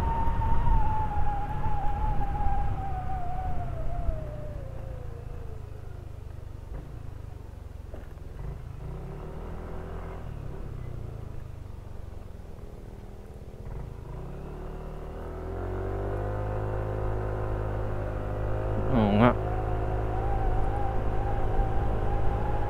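Yamaha NMAX 155 scooter engine with its high CVT whine, heard while riding: the whine falls in pitch and fades over the first few seconds as the scooter slows, the engine runs low and quieter for several seconds, then picks up and rises in pitch again from about 15 seconds in as it speeds up.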